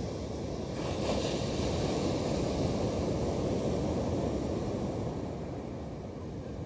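Sea waves breaking and washing up a shingle beach, swelling about a second in and easing off near the end.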